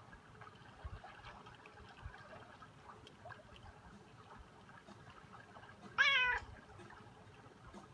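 Domestic cat meowing once, a short call of about half a second about six seconds in.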